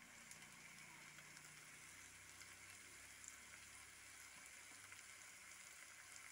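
Near silence: a faint, steady hiss of the thick chicken curry sizzling gently in its pan.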